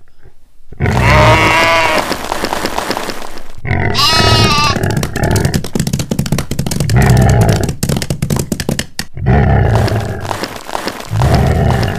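A series of animal calls. The clearest are two quavering bleats, one starting about a second in and a shorter one about four seconds in, followed by lower, rougher calls.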